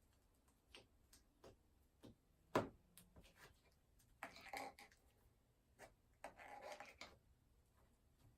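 Fluffy butter slime being squished and stretched by hand, giving faint scattered clicks and pops, one sharper pop about two and a half seconds in, and two short bursts of sticky squelching later on.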